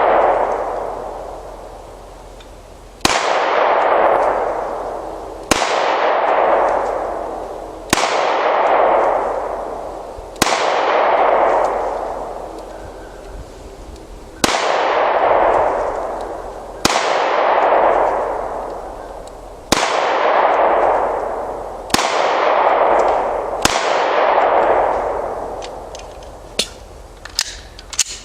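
Taurus 9mm pistol fired nine single shots, spaced about two to three seconds apart, each followed by a long fading echo. A few light clicks come near the end.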